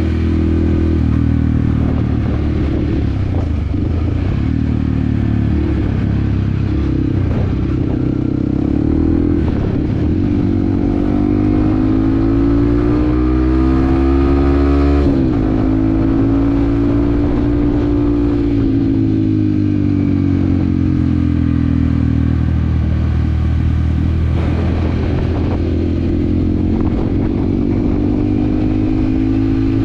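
Yamaha WR155R's single-cylinder engine running under way. Revs climb about a third of the way in, drop suddenly at a gear change about halfway, then ease off and pick up again near the end.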